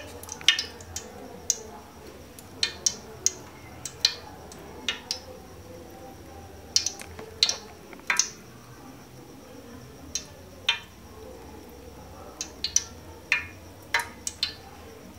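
Cooking oil heating in a stainless steel pot, spitting with irregular sharp pops and crackles, roughly one a second, some in quick pairs.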